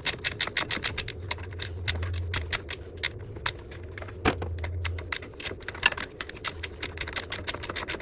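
A 15 mm flex-head ratcheting wrench clicking in quick runs, several clicks a second, as it backs off the serpentine belt tensioner bolt, with one louder knock about four seconds in.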